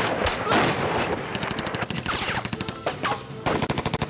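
Gunfire: a couple of single shots at the start, then about a second in, rapid automatic machine-gun fire that keeps going.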